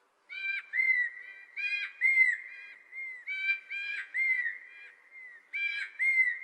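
A bird singing a series of short, clear whistled notes at one pitch, many dropping at the end. The notes come in quick runs of two to four with short gaps between them.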